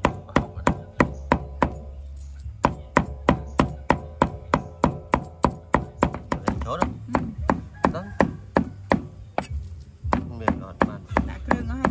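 Knife chopping food on a cutting board, sharp even strokes about four a second, with two short breaks.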